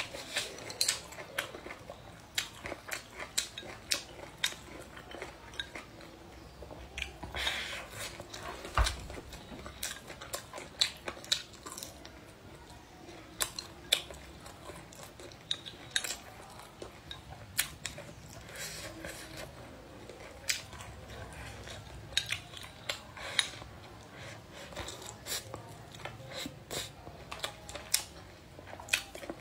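Wooden chopsticks clicking and scraping against a ceramic bowl in many short, irregular taps, mixed with close-up chewing.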